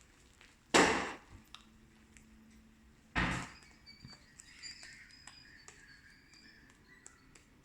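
Fluffy slime being squeezed to pop air bubbles: two sudden loud pops about two and a half seconds apart, each dying away quickly, followed by faint squishing and small clicks.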